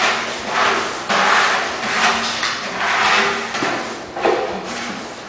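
Steel trowel scraping as it spreads thin-set mortar for floor tile, in repeated strokes about once a second.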